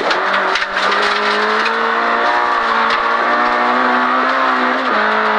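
Volkswagen Golf 16S rally car's 16-valve four-cylinder engine pulling hard at full throttle, heard from inside the cabin, its pitch climbing steadily through the gear. About five seconds in it drops for an upshift. Sharp ticks of gravel strike the car in the first second.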